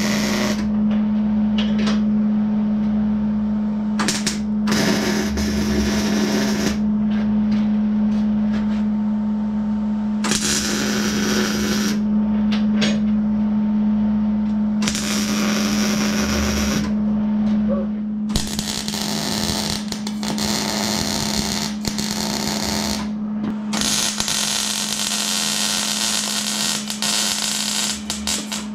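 MIG welding on dump-box steel: the arc crackles and hisses in repeated runs of one to five seconds, separated by short pauses, over a steady low hum.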